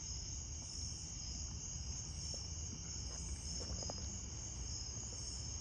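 Night chorus of crickets, a steady high-pitched trill, over a low background rumble, with a few faint small clicks partway through.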